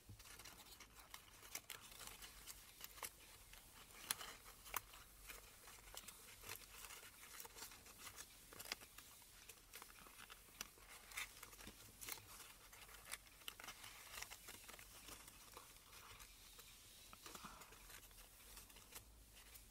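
Faint, irregular crinkling and light clicks of folded origami paper being pressed and squeezed by hand as the glued units of a paper cube are pushed into place.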